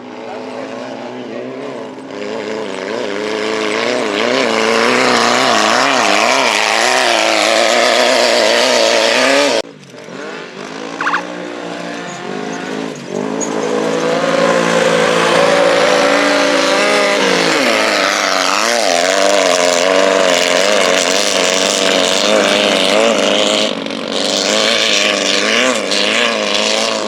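Class 11 off-road race cars (stock air-cooled VW Beetles) running hard, their engines revving with the pitch rising and falling as they accelerate and shift. The sound cuts off abruptly about ten seconds in, then builds back up to full throttle.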